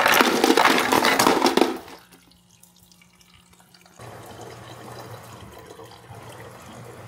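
Tap water running hard into a sink, shut off about two seconds in. After a short quiet, a faint steady low hum sets in.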